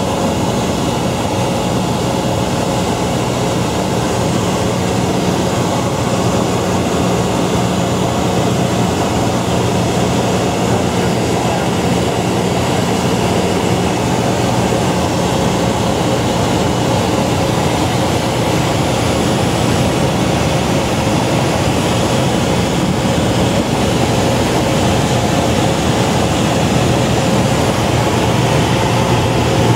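Steady drone of a single-engine light plane's engine and propeller, heard inside the cabin in flight.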